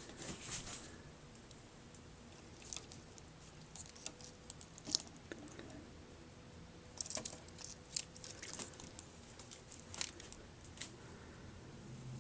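Small, irregular splashes and clicks of a budgerigar bathing in a shallow water dish, coming in scattered bursts with the sharpest about five seconds in.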